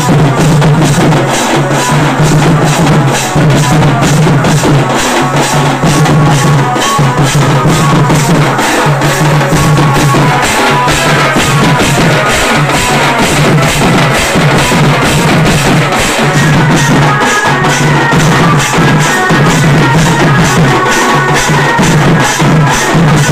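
A street drum band: several drums beaten with sticks in a loud, fast, driving rhythm. Near the end a higher held melodic line comes in over the drumming.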